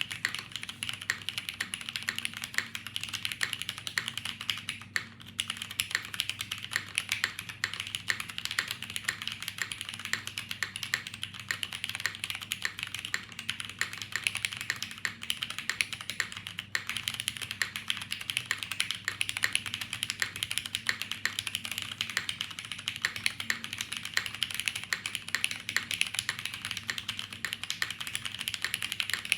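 Fast, continuous typing on a tenkeyless mechanical keyboard with tactile Cherry MX Brown switches in a top-mount aluminium plate, under GMK KA1953 doubleshot ABS keycaps: a dense stream of keystroke clacks with a couple of brief pauses.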